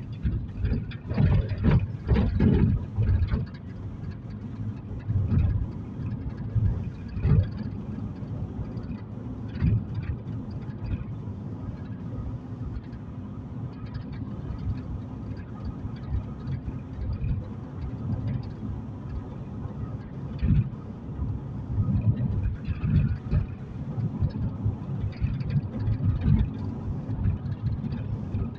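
Car cabin interior while driving: a steady low rumble of road and engine noise, with irregular louder low thumps, the heaviest about one to three seconds in and again around seven and twenty seconds in.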